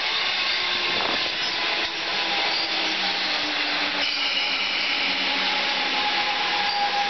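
Comeng electric suburban train pulling slowly into the platform at close range: a steady rushing of wheels on rail with a steady electric motor whine.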